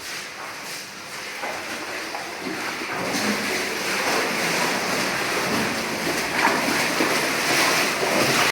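Water rushing and splashing in a cave, a steady hiss that grows louder about three seconds in.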